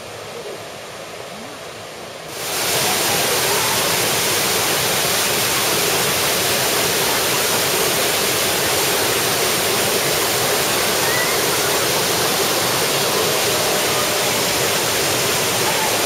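Waterfall rushing over rock cascades. A quieter, more distant flow jumps suddenly at about two and a half seconds to loud, close, steady rushing water.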